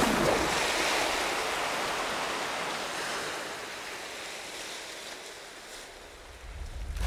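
Proboscis monkey plunging into a river: a loud splash at the start, then churning water that fades away over about six seconds. The sound swells again near the end as the next monkey leaps.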